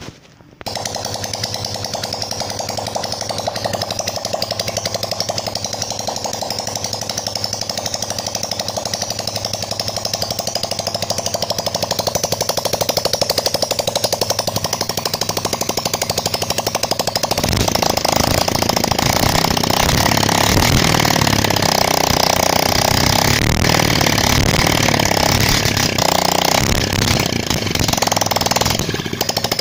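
Hero Honda Splendor Plus single-cylinder four-stroke engine starting and running, its first start after a new bore and piston have been fitted. It catches about half a second in and runs steadily, growing louder with more low rumble about seventeen seconds in.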